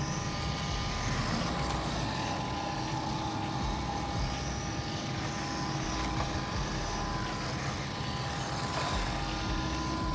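The small 390 brushed electric motor and gears of a 1:16-scale RC truck whining as it drives on concrete, the whine rising and falling with throttle. A steady hum runs underneath.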